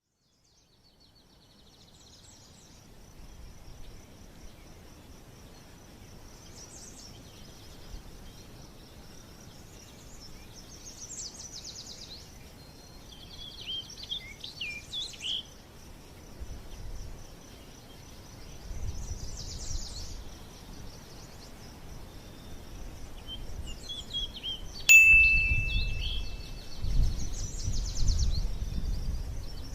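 Birdlike chirping and trills over a steady high-pitched hum, with a single sharp ding that rings briefly about 25 seconds in, and a low rumble near the end.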